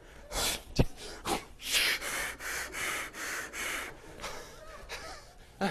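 A man's exaggerated frightened gasps and hard, hissing breaths, acting out a scared car passenger: a quick run of breaths, roughly two or three a second, with a sharp knock less than a second in.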